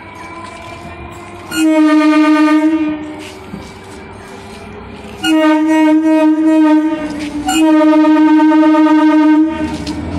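Electric multiple unit (EMU) local train sounding its horn three times: a blast about two seconds in, then two longer blasts close together from about five seconds in, over the steady running noise of the train.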